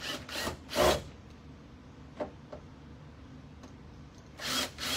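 Cordless drill-driver run in short bursts, backing the hinge screws out of a wooden cabinet door: three quick bursts in the first second, a couple of small clicks about two seconds in, and two more bursts near the end.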